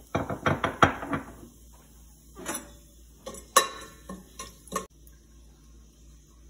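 Kitchenware clattering as whole spices and bay leaves go into a stainless steel pot of hot oil: a quick run of clinks and knocks in the first second, then a few scattered clinks, the sharpest about three and a half seconds in.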